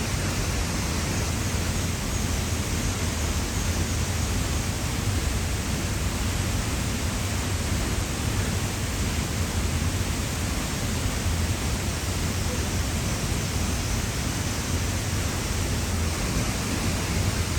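Steady, even rushing of a large waterfall, the falling water making a continuous noise with no breaks.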